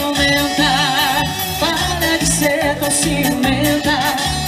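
Live Portuguese popular dance music from a duo: an even, pulsing bass-and-drum beat under a wavering melody line.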